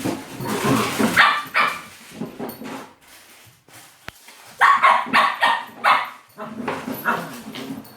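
Puppy barking and yipping in short bursts: one bout about a second in, and a louder run of barks at about five seconds.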